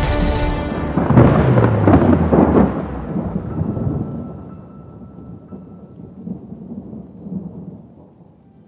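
Thunder in a storm: a loud crack about a second in that rumbles on and slowly dies away over several seconds, over the hiss of rain.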